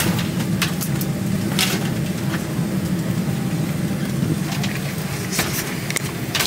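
Steady low hum of an airliner cabin at the gate, the air-conditioning and ventilation running, with a few light clicks scattered through it.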